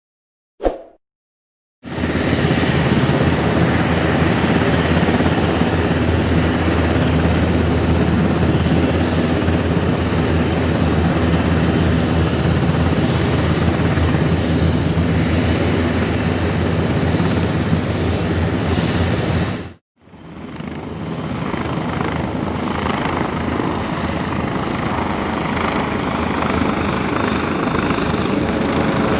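Military helicopter sound effect: a short knock, then the helicopter's rotor beat and engine running steadily for about 18 seconds before cutting off abruptly. After a brief gap a second helicopter recording fades in, with a steady high whine over the rotor noise.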